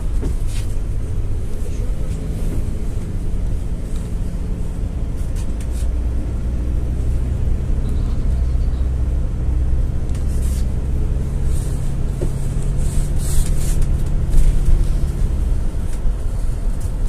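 Cabin sound of a GAZ-A68R52 GAZelle City minibus under way: the engine hum and road noise are steady, the engine note stepping up a little in the first few seconds and easing near the end. A few short rattles or clicks come through above it.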